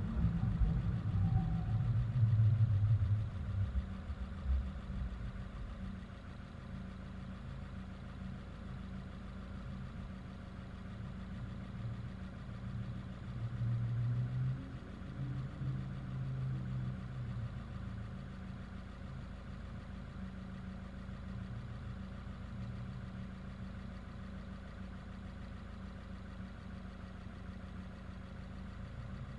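Subaru WRX's turbocharged flat-four engine running at low, steady revs, louder for the first few seconds and swelling briefly about halfway through.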